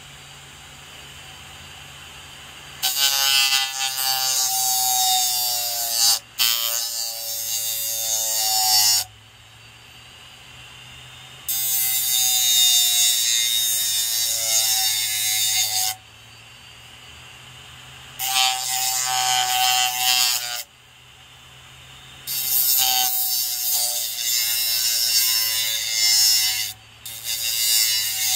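A pocketknife's steel blade ground against the spinning sandpaper disc of a hard-drive spindle-motor sander. It comes in five passes of a few seconds each: a harsh scraping hiss with a wavering ringing tone. Between passes only a faint low hum of the spinning disc is left.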